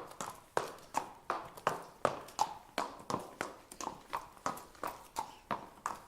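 Horse walking, its hooves striking the ground in a steady clip-clop of about three strikes a second.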